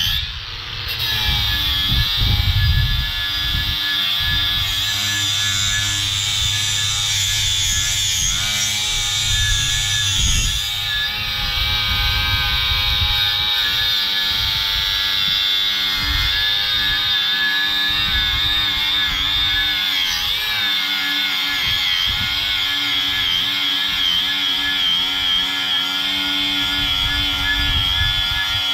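Harbor Freight Earthquake XT 20V brushless 4½-inch angle grinder running steadily with a flap disc, grinding rust off a cast-iron brake rotor: a continuous high motor whine with the rasp of the disc on the metal. Wind rumbles on the microphone.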